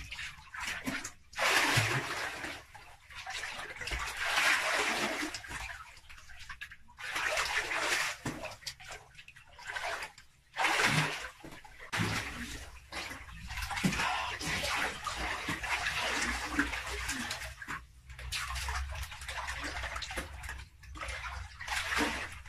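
Water splashing and sloshing in a small pool, in irregular bursts a second or two long with short gaps between them.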